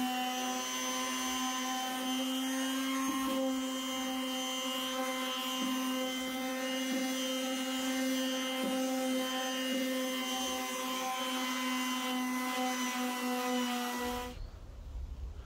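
Makita orbital palm sander running steadily against the edge of a pine board, a constant hum with a high whine, rounding over the board's corner. The sander cuts off abruptly about a second before the end.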